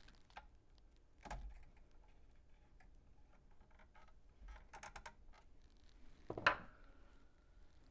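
Small metal clicks and taps from adjusting the feed screw on a bottom-pour lead pot. About six and a half seconds in there is one louder metallic clink that rings on briefly.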